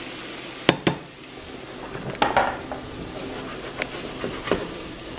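Shrimp and garlic sizzling in a nonstick frying pan with a steady hiss, while a spatula stirs them and knocks against the pan, two sharp knocks about a second in and a few lighter ones after.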